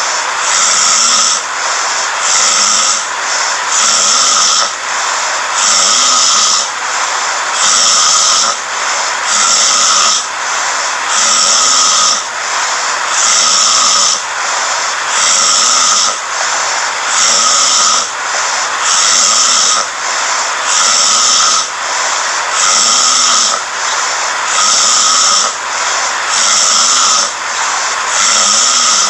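A person snoring, with loud rasping, hissy breaths that repeat evenly about every two seconds.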